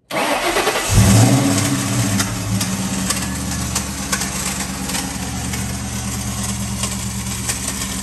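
Ford Mustang engine turned over by its starter and catching about a second in, then running steadily with a constant noisy whirr over the engine note. The noise is the starter not fully disengaging and dragging on the flywheel.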